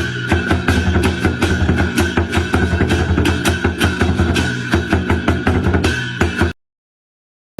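Lion dance drum beaten in a fast, dense rhythm. It cuts off suddenly about six and a half seconds in, followed by silence.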